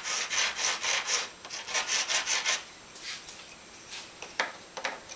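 Sandpaper rubbed by hand over a cast plaster slab: quick back-and-forth rasping strokes, about five a second, in two runs, then a few short knocks near the end. The plaster clogs the sandpaper easily but sands well.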